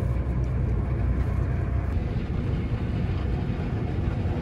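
Passenger train running at speed, heard from inside the carriage: a steady low rumble of wheels on track.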